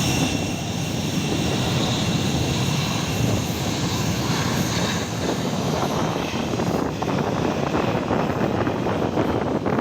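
Airliner engines running steadily, with a high whine over a dense rumble. The whine fades about halfway through, leaving a rougher low rumble.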